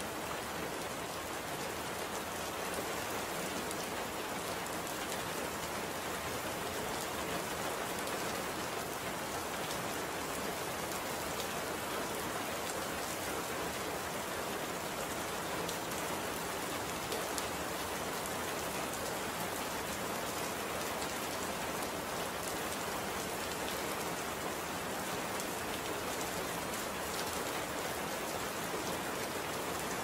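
Steady rain falling: an even, unbroken hiss of many small drops.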